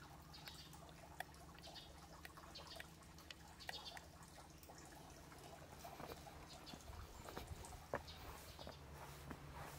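Near silence: faint footsteps on stone steps being climbed, heard as scattered soft clicks, over a faint steady low hum, with a few faint high chirps.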